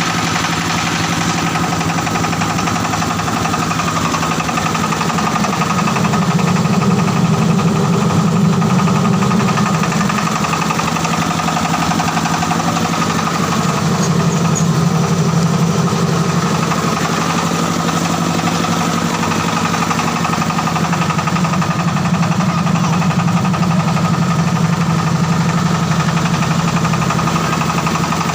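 Diesel engine of a mobile rice-hulling machine running steadily, its low drone swelling and easing off three times.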